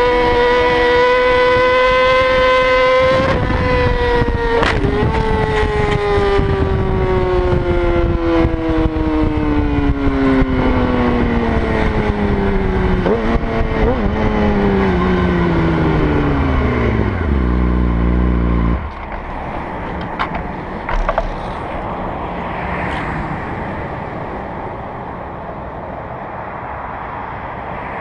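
Motorcycle engine held at high revs, then winding down steadily in pitch over about fifteen seconds under a loud noise of wind and road, with a few knocks along the way. The engine cuts out abruptly about nineteen seconds in, leaving only the steady wind and road noise.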